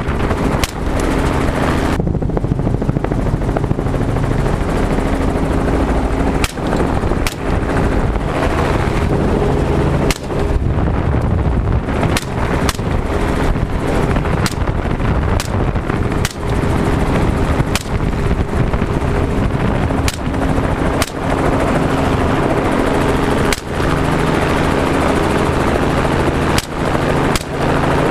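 Steady helicopter engine and rotor noise heard from the open cabin door, with a string of single shots from semi-automatic AR-style rifles fired downward at hogs. The shots come at irregular spacing, some under a second apart and some several seconds apart, about twenty in all.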